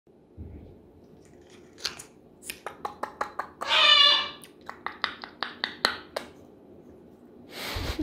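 African grey parrot making a run of sharp beak and tongue clicks, with one short warbling call about four seconds in.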